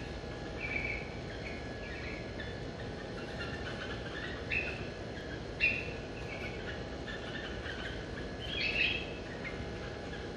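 Small caged finches chirping: short high calls at irregular intervals, a few louder than the rest, over a steady low background hum.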